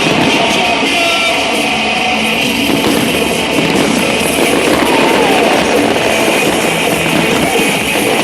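Loud, steady rock music with guitar.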